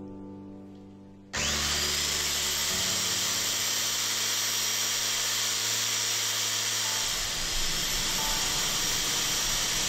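Ronix electric polisher switched on about a second in, its high whine rising briefly as the motor spins up, then running steadily with a loud hiss while a metal padlock is held to the spinning foam buffing pad.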